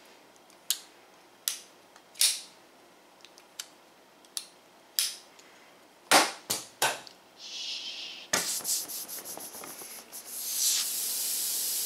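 Sharp single clicks, a few a second apart, of folding pocket knife blades being snapped open and shut, then three louder knocks about six seconds in. Near the end a steady hiss begins: air rushing out of the inflatable vinyl orca through its opened valve as it deflates.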